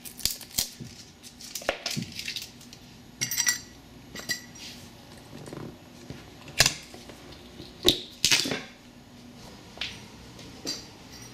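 Clicks, clinks and knocks of launching wheel bracket parts being handled and fitted against a boat transom, with rustling in between; two sharper knocks a little past the middle.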